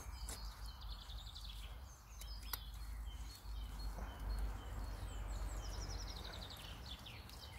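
Small birds singing in the background: short rapid trills and scattered chirps, over a low steady rumble, with a sharp click about two and a half seconds in.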